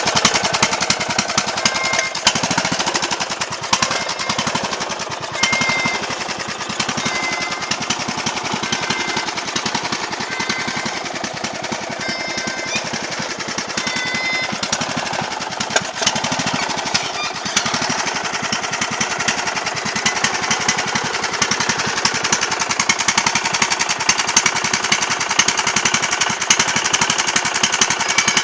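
Racing lawn mower's engine running steadily, a rapid, even string of exhaust pulses with little change in speed.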